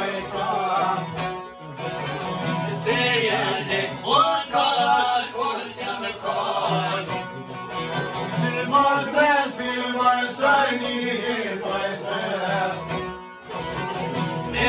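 Male voice singing a folk song over several long-necked lutes being strummed and plucked, with short breaks between phrases.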